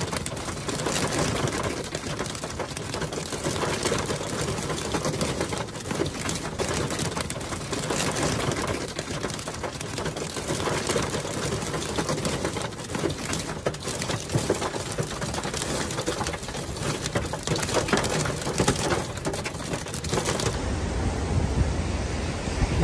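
Tornado-force wind and heavy rain buffeting a phone microphone, with rapid rattles and hits of rain and flying debris. About 20 seconds in it changes to a steadier rush of wind with a low rumble on the microphone.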